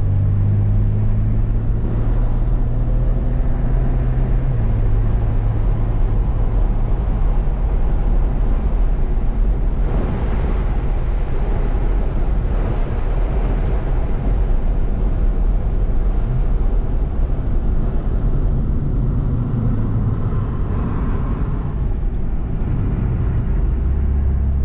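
BMW car's engine and road noise heard from inside the cabin while it is driven at speed on a race track; the low engine note shifts up and down with throttle and gear changes.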